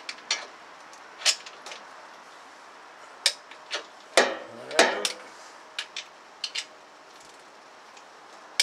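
Socket wrench on an extension clinking and clicking against the gearbox bolts as they are tightened to 65 Nm: scattered sharp metal clicks, with two longer ringing metallic scrapes about four and five seconds in.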